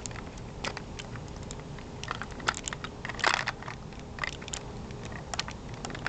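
Lego plastic parts clicking and rattling as a Lego train is handled by hand: scattered small clicks, with a louder scraping rustle about three seconds in.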